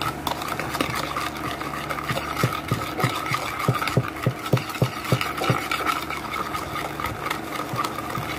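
Metal spoon whipping instant coffee, sugar and hot water in a plastic bowl, beating it toward a cream: a quick, regular run of spoon taps and scrapes, about three strokes a second. A steady hum runs underneath.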